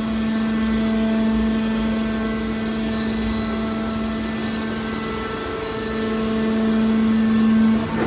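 Hydraulic scrap-metal baler's power unit running with a steady hum while the ram slowly pushes a compressed bale of steel wire out of the chamber. The hum swells slightly and cuts off near the end.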